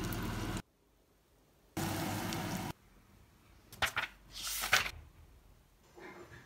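A few brief rustles of packaging being handled, about four seconds in, set between short stretches of room tone that cut in and out abruptly.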